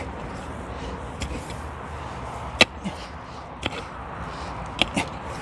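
Pickaxe striking into hard, stony soil: a series of sharp clacks about a second apart, the loudest about halfway through, as the digger works around a stone. A steady hum of road traffic runs underneath.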